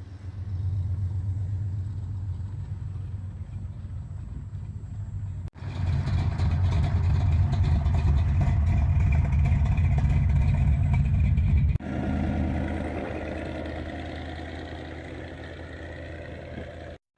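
Engines of three show vehicles running, heard one after another with abrupt changes. First a rat-rod pickup's engine idles, then a blue Dodge Challenger passes loudly, and last a black pickup with tall exhaust stacks drives off, its engine fading.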